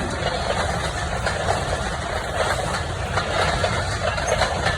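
A vehicle engine running steadily, a low rumble under a constant noisy wash.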